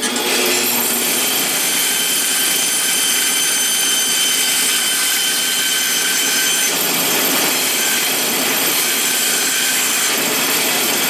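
Bandsaw running and cutting a curve through a stack of two pine boards: a loud, steady saw noise with a high whine of several steady tones over it.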